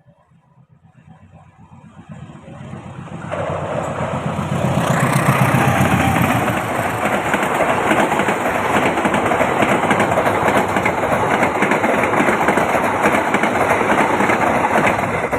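A train passing close by: its rumble builds over the first few seconds, then the loud, steady rush of the train running past goes on to the end, with no horn.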